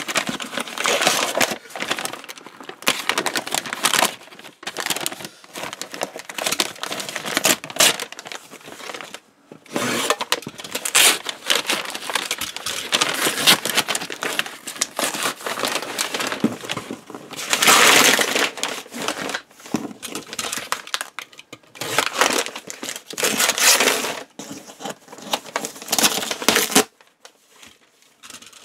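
Brown kraft wrapping paper being torn and crumpled off a taped cardboard box, in irregular crinkling rustles with short gaps, stopping shortly before the end.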